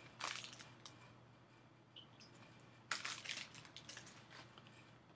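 Light clicking and tapping of computer input: a short cluster of clicks about a quarter second in and a louder run of clicks starting about three seconds in, over a faint steady hum.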